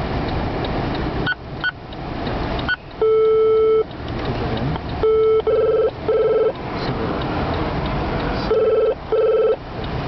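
Telephone ringback tone, the caller's side of a phone ringing at the other end, playing loudly over a speaker. It comes as pairs of short tones close together, two rings, with a few short high beeps before them, over the low rumble of the car.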